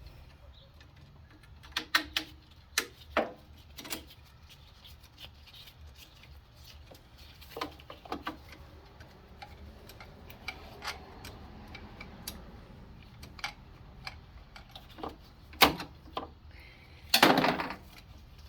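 Hand tools clicking and clanking on metal: a driver with a T20 Torx bit and loose sockets handled and worked on the lawn tractor's fasteners. Irregular sharp clicks and knocks, with a louder clatter near the end.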